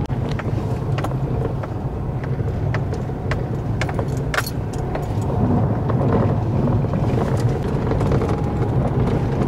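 Heard from inside the cabin, a Ford Fiesta is driving up a rough dirt-and-gravel hill track, its engine running steadily under load. Many short clicks and knocks from the track sound over the road noise.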